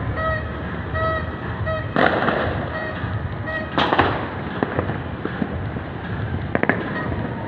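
Fireworks going off: two big bangs about two and four seconds in, scattered pops, and a cluster of sharp cracks near the end, over a constant low city rumble. A short pitched beep repeats about twice a second through the first half.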